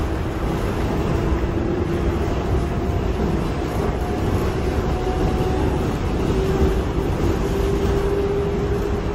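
R142A subway car heard from inside while under way: a steady rumble of wheels on rail, with a steady hum running through it.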